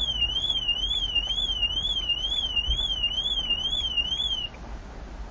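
A Nissan's car alarm sounding a warbling electronic siren tone that sweeps up and down about two to three times a second, then cuts off suddenly near the end.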